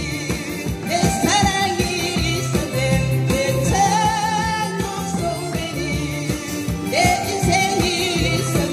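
A woman singing a Korean pop song into a microphone, with harmonicas playing along, over amplified backing music with a steady bass and beat.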